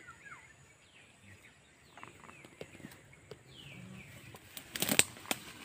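Grass and leafy plants rustling and snapping, handled at close range in a brief loud burst about five seconds in. Faint bird chirps that fall in pitch sound throughout.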